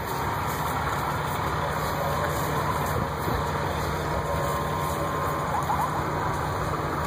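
Fire engines idling, a steady low rumble.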